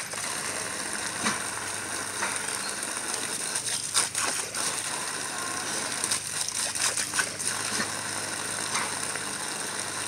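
Water from a running garden hose splattering and spraying as a puppy bites and snaps at the stream: a steady hiss broken by irregular crackling splashes.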